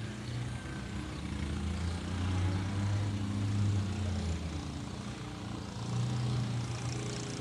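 An engine running with a steady low hum, its pitch shifting up and down a few times.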